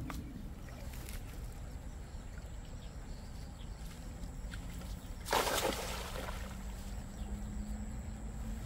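A weighted cast net thrown out over river water lands with one spattering splash about five seconds in, lasting about a second. Under it runs a low steady rumble with a faint steady hum.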